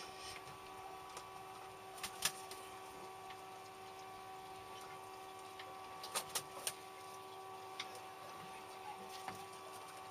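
Steady mechanical hum from a small motor, with a few sharp clicks and knocks: a pair about two seconds in and a quick cluster around six seconds in.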